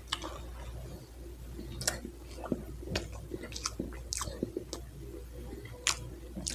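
A man chewing a mouthful of soft chocolate cake close to the microphone, with irregular wet mouth smacks and clicks.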